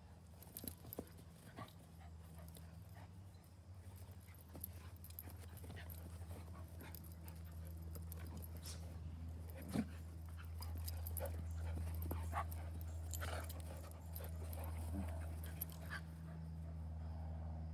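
Two dogs play-wrestling: panting, scuffling and short whiny vocal noises come and go, with one sharp knock about ten seconds in, over a steady low hum.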